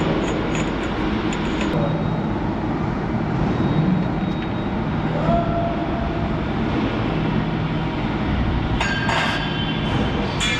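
Steady industrial machinery noise: a constant rumble with a low hum, with a few light clicks near the start and a brief metallic clatter about nine seconds in.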